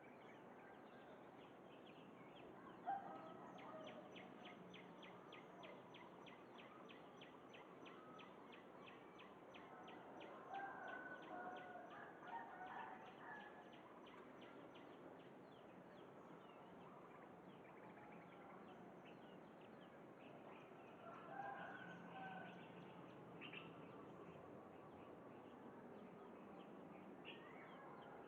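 Zebra dove (merbok) cooing faintly in short bursts, a few seconds in, again at about ten to thirteen seconds and near twenty-two seconds, over a soft run of quick high chirping ticks.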